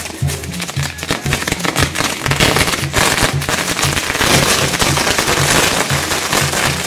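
Firecrackers going off in rapid, dense succession, loudest through the middle, over music with a steady bass beat.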